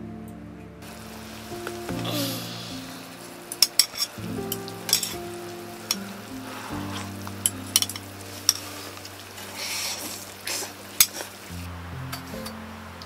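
Food sizzling in a pan on a gas burner, with a string of sharp clinks of spoons against steel cups and dishes. Soft background music with held notes plays underneath.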